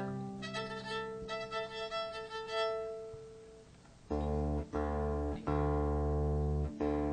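Fiddle sounding a few held notes that fade away, then a guitar chord struck about four times with short gaps, loose playing between songs rather than a tune.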